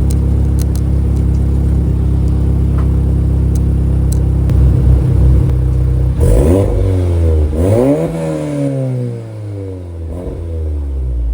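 Audi S3's turbocharged 2.0-litre four-cylinder idling steadily through a freshly fitted ECS Tuning valved, resonated 3-inch catback exhaust, then revved twice, about six and eight seconds in, each rev rising and falling back toward idle, with a smaller blip near the end.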